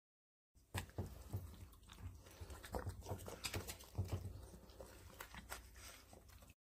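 Small dogs crunching and chewing hard treat cookies fed by hand: a quick run of sharp, crisp crunches with wet mouth sounds.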